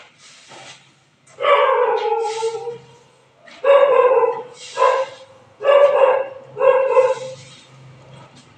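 A dog barking five times, loud and high, the first bark drawn out and the rest short, with a couple of scraping strokes of a tool on pavement in the first second.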